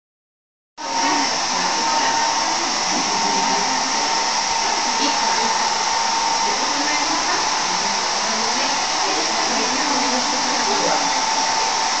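Small handheld hot-air blower running steadily: a continuous fan hiss with a steady motor whine, starting about a second in.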